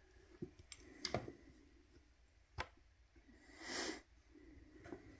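Faint clicks and taps of plastic toy pegs being handled on a pegboard: a few scattered clicks, one sharper about halfway through, and a short breathy hiss a little later.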